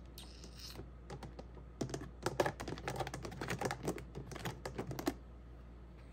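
A quick run of small plastic clicks as fingers press and snap the little hinged lids on the compartments of a plastic seed storage case.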